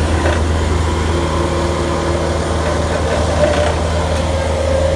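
Engine of a hydraulic pile-installation rig running steadily with a low hum while its drive turns a galvanized helical steel pile into the ground.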